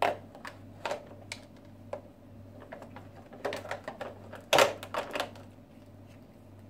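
Plastic dolls and a plastic toy car knocking and clicking together as the dolls are handled and lifted out: an irregular string of sharp clicks and taps, the loudest cluster about four and a half seconds in.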